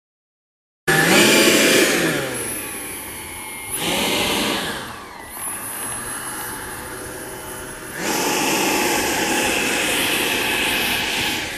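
Electric ducted fan of an RC BAE Hawk jet model, a Dyn-E-Max fan driven by a Scorpion motor, whining as the model taxis on the runway. The whine starts abruptly about a second in and its pitch dips and rises as the throttle changes. The level jumps twice, about 4 and 8 seconds in.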